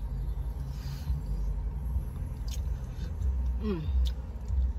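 Eating fried chicken inside a car: faint mouth clicks and chewing over a steady low rumble in the cabin, with a brief falling 'mm' from the eater's voice about three and a half seconds in.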